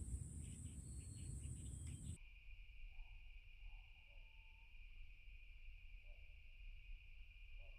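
Insects buzzing steadily beside a swampy reed channel: a very high-pitched buzz over a low rumble that both stop about two seconds in, then a lower-pitched steady buzz, with a few faint short calls in the background.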